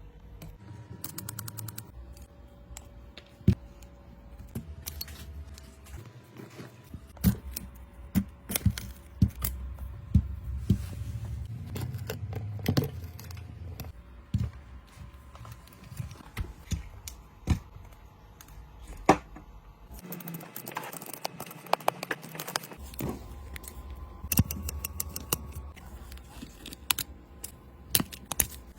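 Irregular clicks and taps of small hand tools and phone parts being handled during an iPhone screen repair.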